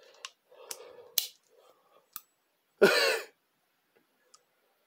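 Sharp metal clicks from a chrome socket being fitted and worked on an old SK universal-joint adapter, three of them in the first two seconds. About three seconds in comes a brief, louder vocal sound, close to a cough.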